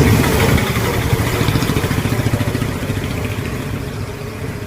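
A motor running with a rapid, even low pulsing; it starts abruptly and grows gradually quieter.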